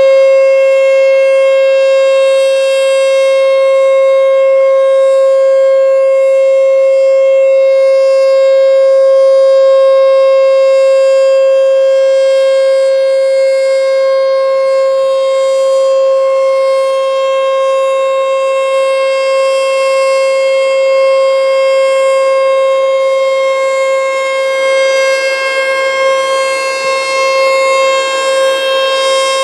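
American Signal T-121 electromechanical outdoor warning siren sounding loud and steady, one unchanging pitch held without rising or falling, during a test of the emergency sirens. The loudness wavers slightly near the end.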